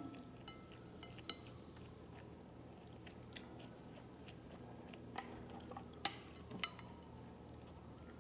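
Quiet eating sounds: soft chewing with a few sharp clinks of utensils against a dish, the loudest about six seconds in, over a steady low hum.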